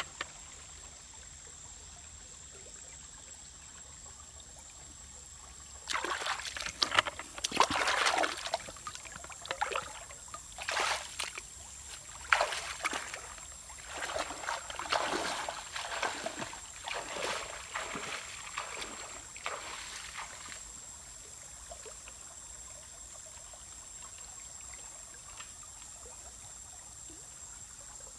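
Legs wading through a shallow stream, water splashing and sloshing in a run of irregular strokes from about six seconds in until about twenty seconds, with a low steady trickle of the stream before and after.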